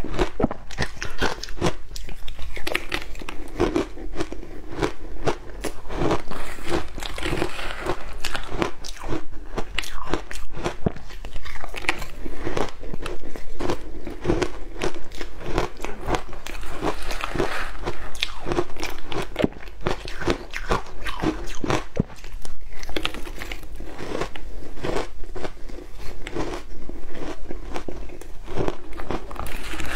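A person biting and chewing mouthfuls of crushed ice coated in matcha powder, close to a clip-on microphone: dense, rapid, irregular crunching that goes on without a break.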